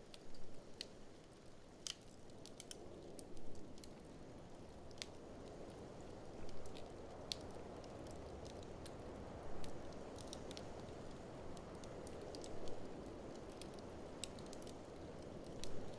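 Wood fire crackling in an open fireplace, with many sharp pops and snaps over a steady low wind noise, and brief louder bursts about every three seconds.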